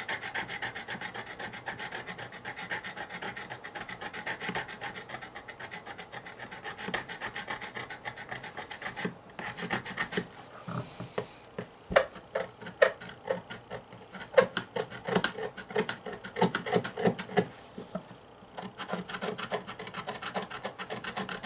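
Metal tool tip scraping the corroded metal base contact of an LED flood bulb, a rasping run of rapid short strokes that cleans the corrosion off so the bulb can make contact. About halfway through the strokes turn slower, sharper and louder, then a quick steady rasp returns near the end.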